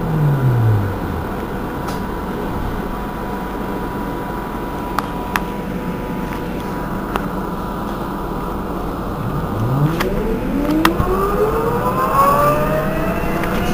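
Irisbus Cristalis ETB12 trolleybus standing with its electrics running: a steady electrical hum with a constant high whine. An electric motor whine falls away at the start, and from about ten seconds in a whine rises steadily in pitch as a motor spins up, with a few light clicks.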